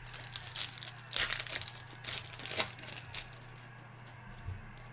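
Crinkling and rustling as trading cards and their packaging are handled. The sound comes as a run of quick scraping bursts over the first two and a half seconds, then a few light clicks.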